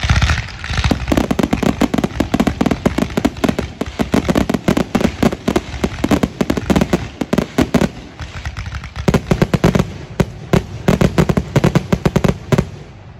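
Fireworks finale barrage: aerial shells launching and bursting in rapid succession, dozens of loud reports crowding over one another. The barrage slackens briefly about two-thirds through, then picks up again and stops suddenly near the end.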